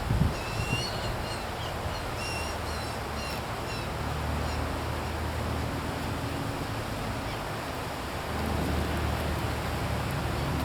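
Backyard ambience: several short bird chirps in the first few seconds over the steady low hum of a distant engine, which grows louder near the end.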